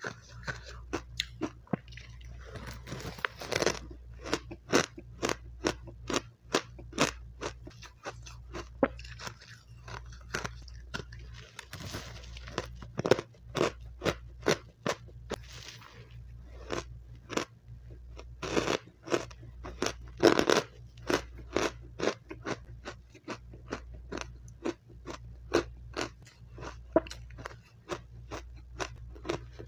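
Close-miked crunching and chewing of powdery refrozen matcha ice: a steady string of crisp crunches, about two to three a second, with a few louder bites.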